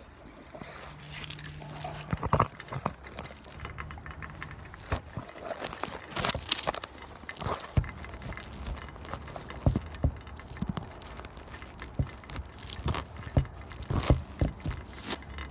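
Handling noise on a phone's microphone: a jacket sleeve and glove rustling and rubbing against it, with a string of irregular knocks and scrapes as the phone is moved and propped up on the pavement.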